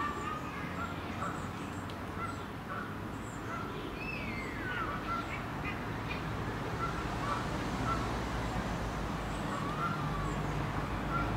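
Outdoor pond ambience of birds calling in short, scattered chirps, with one longer call falling in pitch about four seconds in. A low rumble grows in near the end.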